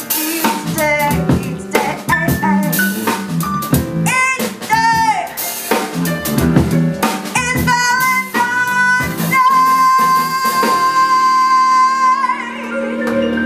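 A woman singing live with piano, electric bass and drums. Near the end she holds one long high note with vibrato before it breaks off, leaving the band's chord ringing.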